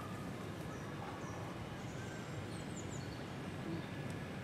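Steady outdoor background noise with small birds chirping now and then, a quick run of high chirps about two and a half seconds in.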